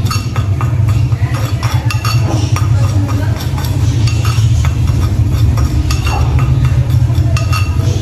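Metal spoon stirring dry ground spices in a terracotta clay bowl: many quick light clinks and scrapes of metal on clay, over a steady low hum.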